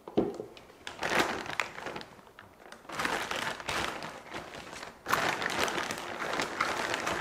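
Plastic bag of frozen blueberries crinkling in several spells as it is handled and pulled open.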